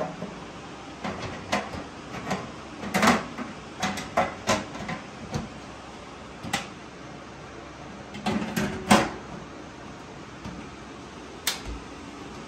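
Irregular knocks and clanks of a sheet-steel workbench drawer being handled, metal tapping on metal, with the loudest knock about nine seconds in.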